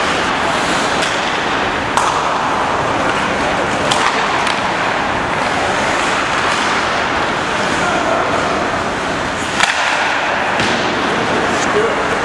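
Ice hockey game on a rink: a steady, noisy rink din, broken by sharp clacks of sticks and puck against the ice and boards every second or two.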